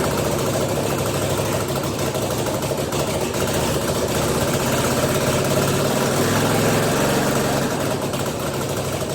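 Freshly rebuilt Kawasaki Brute Force 750 ATV's V-twin engine idling steadily, picking up slightly in the middle.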